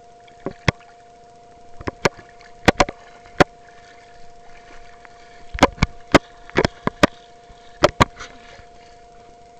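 A small waterproof camera being handled and bumped underwater: more than a dozen sharp knocks and clunks at irregular intervals, over a steady two-tone hum.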